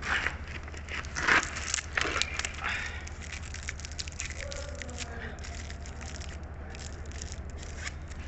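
Close-up eating sounds: a run of crackles and clicks, densest and loudest in the first three seconds, over a steady low hum.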